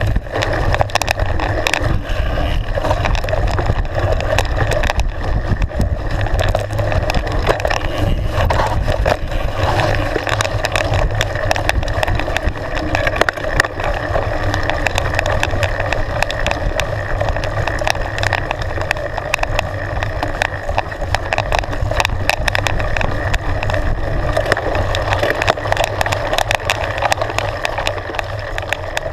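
Mountain bike riding fast down a dirt forest trail: tyres rolling over the dirt and the bike rattling and clattering over bumps and roots, over a steady low rumble of wind on the microphone.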